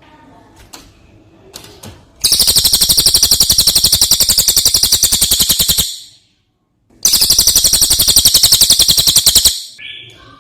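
Brown cililin bird singing two long, loud, very rapid rattling trills, each lasting about three seconds, with a short silent gap between them and faint chirps before and after.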